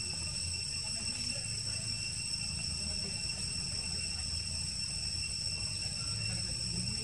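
Insects trilling steadily at one unchanging high pitch, over a low, steady rumble.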